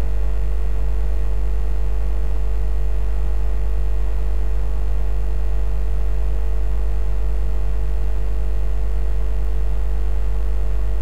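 Steady low electrical-sounding hum with a faint hiss and a few faint steady tones above it, unchanging throughout.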